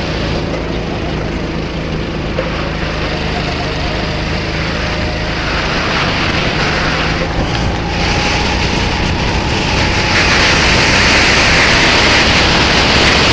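Sodi RT8 rental kart's engine running hard through the last corners and onto the straight, with wind rushing over the action-camera microphone. The sound gets gradually louder, and the wind hiss rises about ten seconds in as the kart picks up speed on the straight.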